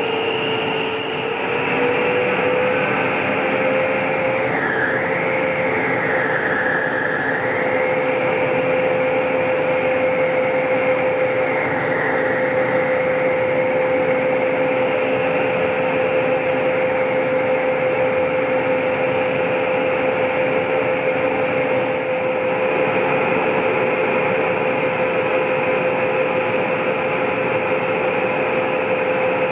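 Aerial tramway drive machinery running: a steady mechanical hum with a steady whine that rises a little in the first few seconds, then holds.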